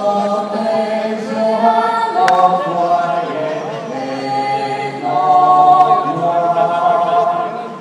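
Many voices singing together in long held notes, echoing through a packed arena.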